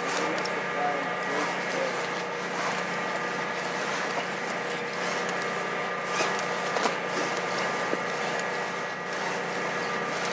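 Steady engine hum at an unchanging pitch, with a few small knocks and clicks.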